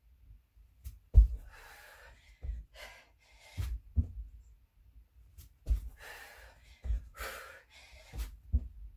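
Dull thuds of feet and hands landing on an exercise mat during burpees, about one a second, with heavy, gasping breaths between them.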